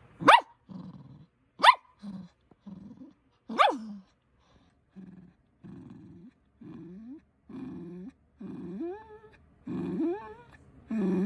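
Grey poodle barking sharply three times, then grumbling in a string of short low growls that stretch into long, wavering whining moans near the end: the dog is demanding a ball it cannot reach.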